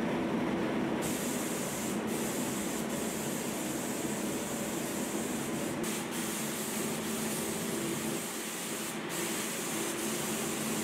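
Compressed-air gravity-feed spray gun hissing steadily as it sprays filler primer, the hiss dipping briefly a few times between passes, over a steady low hum.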